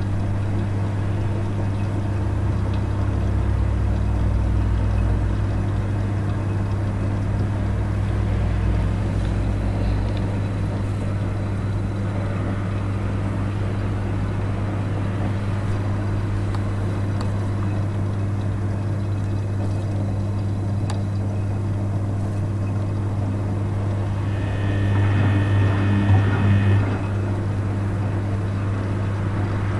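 Rex RL12X front-loading washing machine running its wool wash at 40°C: the drum turning with water sloshing over a steady low hum, with a deeper rumble for the first few seconds. A brief higher whine sounds near the end.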